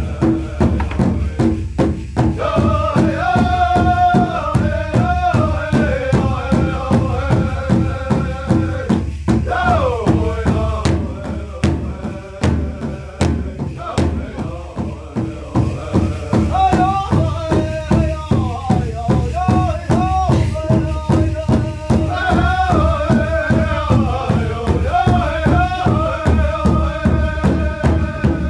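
Powwow drum song for a jingle dance: a large drum is struck in a steady, even beat under high-pitched chanted singing. About ten seconds in the singing drops in a falling phrase.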